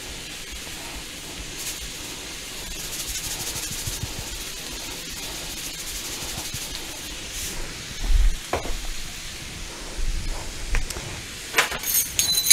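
Sea salt poured from a canister onto ground beef and onions in a skillet: a soft, steady hiss of grains over the faint sizzle of the hot pan. In the second half there are a few dull thumps and sharp clicks.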